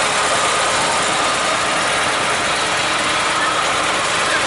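Large vehicle's engine idling steadily, heard beside the open cab door.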